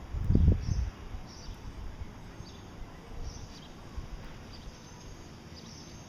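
Small cage finches giving short, high chirps about once a second. A low thump lasts about half a second near the start and is the loudest sound.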